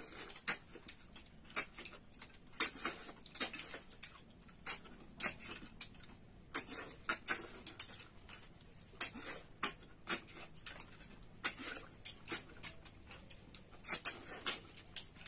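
Close-up eating sounds: irregular short, sharp sucking and slurping noises as snails (tharoi) are sucked from their shells, mixed with chewing.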